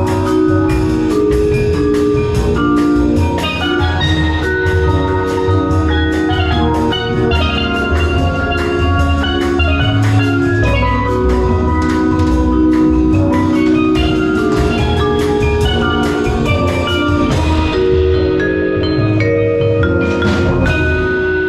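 Background music with mallet-percussion melody and a steady beat.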